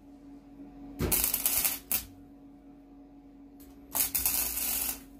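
Wire-feed (MIG) welder arc crackling in two short bursts of about a second each, laying stitch welds along a crack in a thin steel mower deck at the welder's lowest setting to avoid blowing through. A steady low hum runs underneath.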